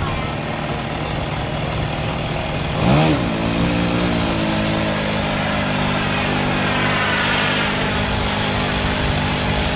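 Radio-controlled model airplane engine running at speed in flight, rising sharply in pitch about three seconds in, then holding a steady drone.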